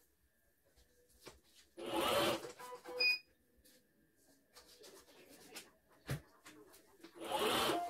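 Computerized portable embroidery machine being worked from its touchscreen: a short electronic beep about three seconds in, between two short bursts of mechanical noise, one about two seconds in and one near the end.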